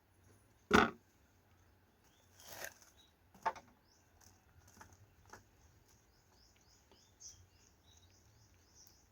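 A sharp knock about a second in, then a brief rustle and several lighter clicks and taps, over faint, repeated high chirping.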